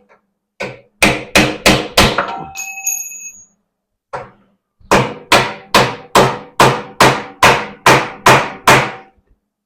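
Hammer striking a steel patch on an ATV frame, tapping it down into place: a quick group of blows, a pause with a brief metallic ring, one lone hit, then a steady run of about eleven blows at roughly two and a half a second.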